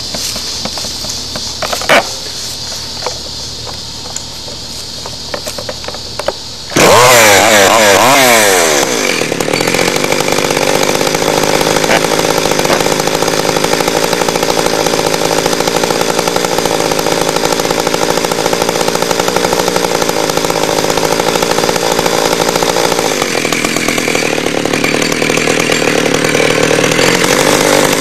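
Chainsaw comes in suddenly and loud about seven seconds in, its engine pitch sweeping for a couple of seconds. It then runs steadily.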